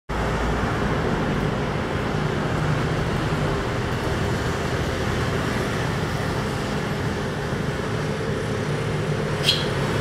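Steady background noise like distant road traffic. Near the end comes one short, high chirp from a barn swallow.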